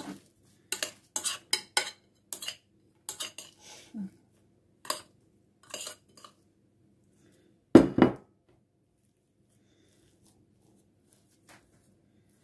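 Metal spoon clinking and scraping against glass bowls while mashed potato is scooped out and dropped into a glass pie dish. There is a quick run of sharp clinks over the first six seconds and one much louder knock about eight seconds in.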